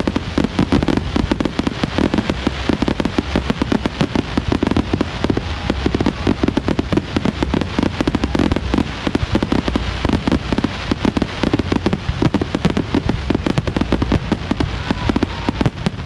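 Fireworks going off in a dense, continuous barrage, many sharp bangs and crackles overlapping with no break.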